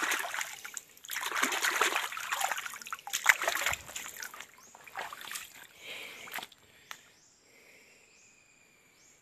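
Hands splashing and sloshing in shallow creek water while a stone is dug out, in irregular bursts that stop about six and a half seconds in. Faint repeated high chirps follow.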